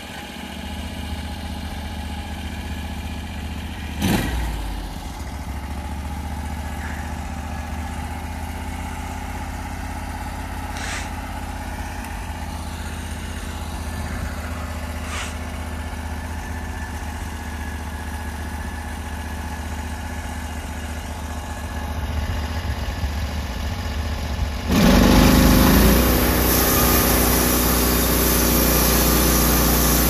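Norwood LumberMax HD38 sawmill's gas engine idling steadily, with a single knock about four seconds in. About five seconds before the end it is throttled up with a short rising pitch, then runs loud and steady at speed.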